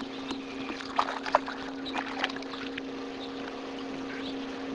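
Small fishing boat on the water: a steady low hum, with a few short knocks and clicks between about one and two and a half seconds in.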